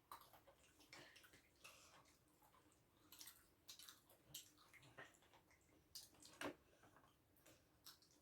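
Faint eating sounds: scattered clicks and taps of cutlery and food on plates with soft chewing and squishing, a couple of sharper clicks around the middle.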